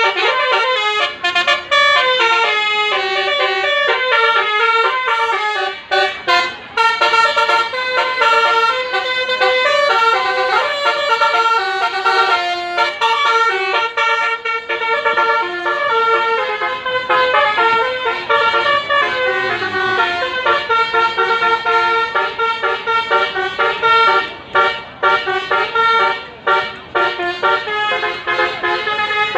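Bus telolet horns, multi-tone musical air horns, playing melodic horn tunes without a break. Several sound over one another, stepping from note to note.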